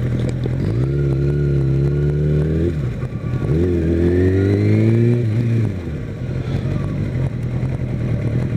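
Kawasaki Ninja ZX-6R's inline-four engine pulling hard: the revs climb for about two seconds, dip at a gear change about three seconds in, climb again, then fall away as the throttle eases off a little before six seconds.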